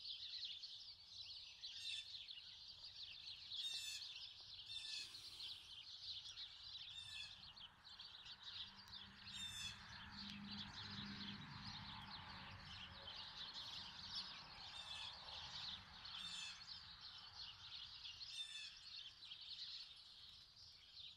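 Faint chirping of small wild birds: a dense, continuous high chatter with sharper chirps every second or two. A faint low hum rises and fades in the middle.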